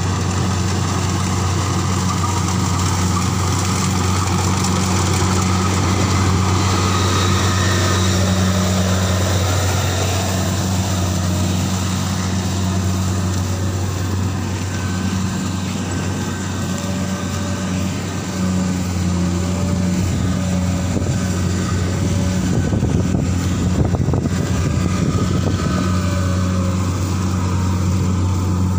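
Rice combine harvester's diesel engine running with a steady low drone.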